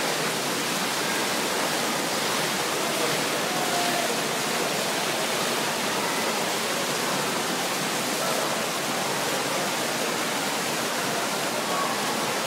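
Steady rushing of water from the splash pool's fountain jets bubbling up through the shallow water.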